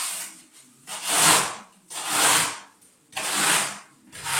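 Steel trowel scraping pebble-texture decorative plaster across a wall in repeated rasping strokes, a little faster than one a second.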